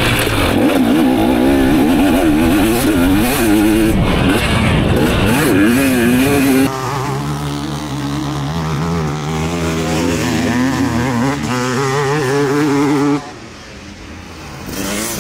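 Motocross dirt bike engines revving, the pitch rising and falling as the throttle is worked. About halfway through, the sound changes abruptly to a steadier engine note, and near the end it drops to a quieter level.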